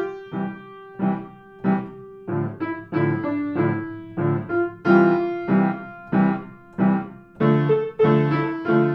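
Background piano music: struck chords in a steady pulse, about two a second, each note dying away before the next.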